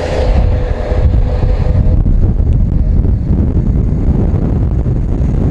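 Wind buffeting the camera microphone of a motorcycle rider on the move, a loud, gusty low rumble. The engine's note is heard under it for the first couple of seconds, then fades.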